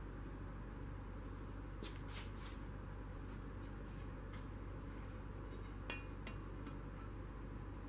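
Metal engine parts being handled: a few light clicks about two seconds in and a single metallic clink with a brief ring about six seconds in, over a steady low hum.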